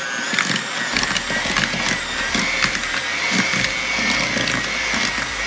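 Electric hand mixer running on low speed, its beaters creaming butter, sugars and peanut butter into a stiff dough in a plastic bowl. A steady motor whine runs under irregular knocks from the beaters.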